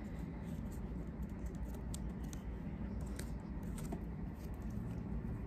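Light, scattered clicks and taps of paper craft pieces and a plastic glue bottle being handled while gluing, over a steady low background hum.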